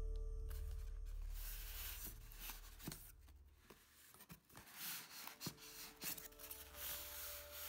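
Cardboard box and styrofoam packing being handled while a slow cooker is unpacked: scraping and rustling with several light knocks. Soft background music fades out over the first couple of seconds and returns faintly near the end.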